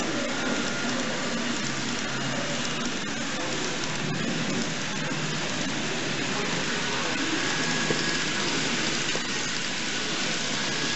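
Steady, even hiss of background noise with a faint murmur, under which N gauge model trains roll along the layout's track, a blue passenger train first and then a steam locomotive with its coaches.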